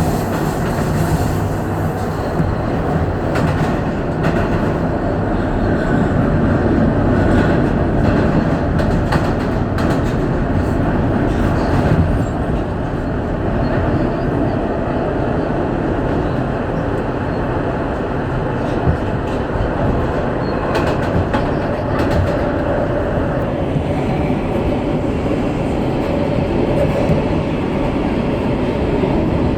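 Inside an R160 subway car running at speed, heard with the air-conditioning off: a steady rumble of wheels on rail with scattered clicks over the rail joints.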